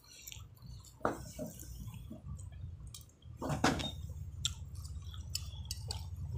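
Wet, squishy chewing and mouth sounds of eating saucy lontong sayur and fried noodles, with a metal spoon clicking and scraping against the bowl. Sharper knocks come about a second in and again around three and a half seconds in, over a steady low hum.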